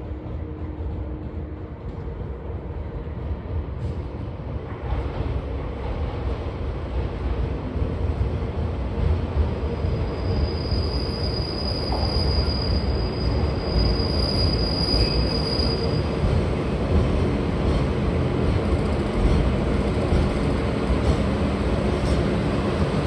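Diesel locomotive hauling a rake of new subway cars into the station at low speed, its engine running and the rumble of the train growing louder as it approaches. A high thin squeal from the train's wheels sounds from about ten to sixteen seconds in.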